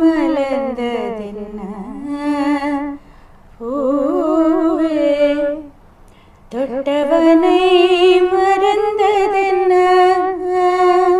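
A woman singing unaccompanied in three long phrases with short breaks between them. The first phrase falls in pitch, and the last is a long held note with a wavering vibrato.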